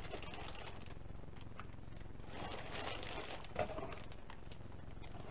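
Clear plastic bags of model-kit sprues crinkling as they are handled and shifted in a cardboard box, with light clicks of plastic parts. The crinkling is busiest a little past halfway.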